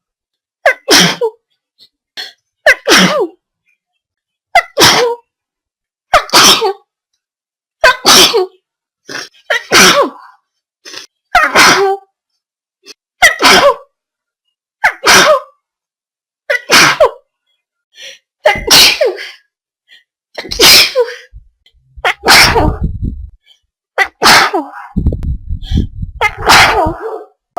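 A person sneezing over and over, about fifteen sharp sneezes, roughly one every two seconds. A low rumble joins in under the last few sneezes.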